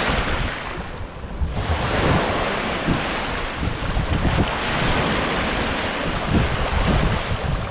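Surf washing up around the shoreline: shallow waves rushing in and draining back over sand. The sound eases briefly about a second in, then the next wave swells up. Wind buffets the microphone with a low rumble.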